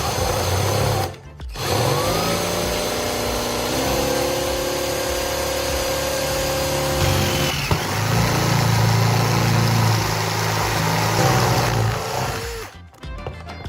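Electric drill with a step drill bit boring a hole through a metal spoon. The motor spins up with a rising whine and runs steadily, stops briefly about halfway through, then runs again for a few seconds.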